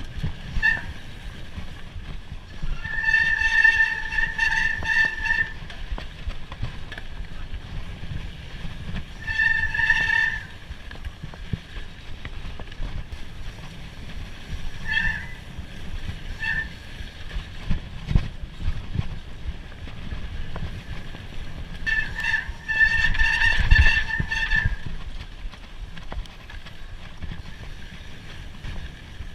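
Mountain bike brakes squealing in three long squeals of one to three seconds and a few short chirps, over a steady low rumble from riding the trail.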